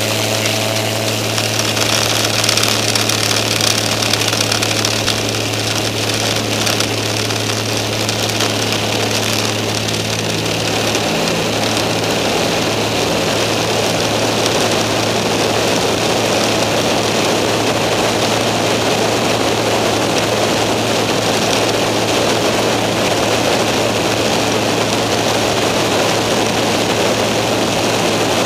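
Skyranger microlight's engine and propeller running at steady takeoff power through the takeoff run and climb-out, a loud even drone. Rushing wind over the microphone grows about ten seconds in, after lift-off.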